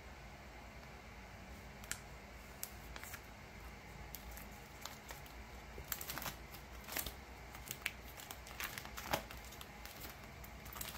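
Light crinkling and rustling of photocards, their plastic sleeves and binder pages being handled, with scattered small clicks. It grows busier in the second half.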